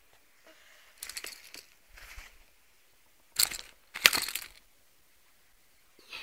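A few short crunching rustles, irregular, the loudest two about three and a half and four seconds in.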